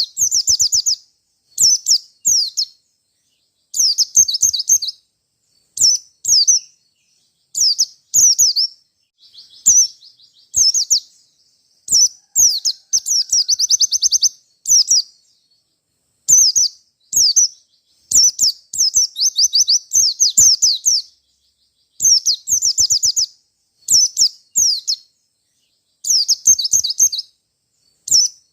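A pleci (white-eye) singing fast, high, twittering phrases of quick downward-sweeping notes. The phrases come in short bursts every second or two with brief pauses between them. This is the loud, rapid 'ngalas' song that keepers play to lure other white-eyes into answering.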